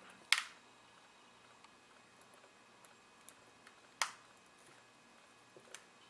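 Light sharp clicks of hand-soldering work on a laptop circuit board, with the soldering iron and solder wire at the DC jack's pins: one near the start, a second about four seconds in, and a few fainter ticks between, over a faint steady hum.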